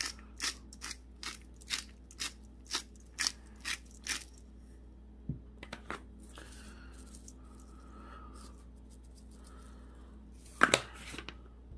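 A seasoning shaker shaken over raw chicken breasts: quick rattling shakes about two a second that stop about four seconds in. A short, loud double noise comes near the end.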